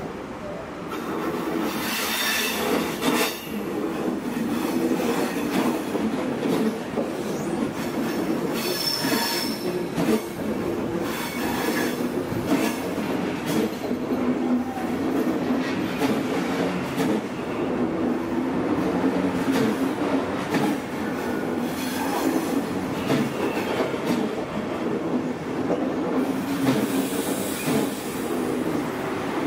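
Deutsche Bahn Intercity passenger coaches rolling slowly along the platform as the train arrives, with a steady rumble of wheels on rail and some clicking over the rail joints. High wheel squeals flare up a few times, near the start, around the middle and near the end.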